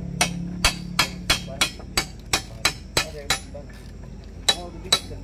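Hand hammer striking the steel track shoe plate of a Komatsu excavator in sharp, ringing metal-on-metal blows, about three a second; they pause briefly past the middle, then resume.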